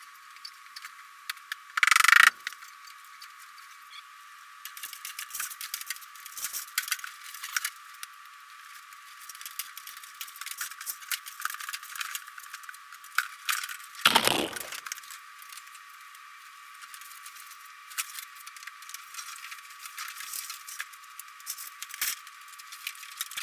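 Irregular clicking and rattling of parts and tools being handled, with two louder sudden bursts, one about two seconds in and one near the middle.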